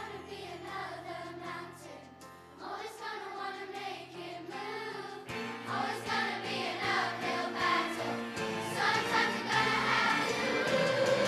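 Children's choir singing with an accompaniment, getting louder toward the end.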